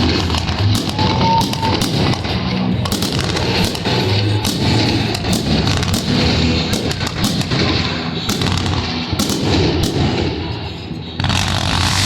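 Fireworks exploding and crackling in rapid, irregular succession over music. About a second before the end the bangs stop and a steady hiss takes over.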